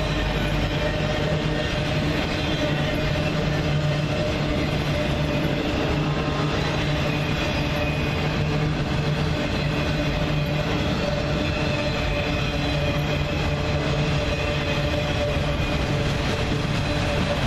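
A train passing: a continuous rumble of wheels on the rails with a steady low drone, holding at an even level throughout.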